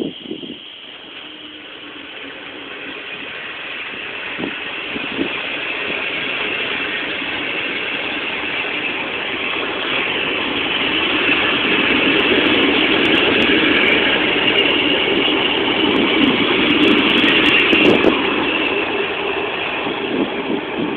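Passenger coaches of a train rolling past at close range, their steel wheels rattling over the track in a dense, steady rush. The sound grows louder over the first dozen seconds, stays loud, then eases a little near the end as the last coach draws away.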